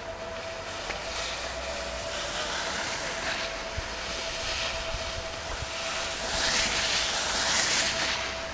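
Skis hissing and scraping over packed snow as young skiers pass close by, in several swells, loudest from about six to eight seconds in.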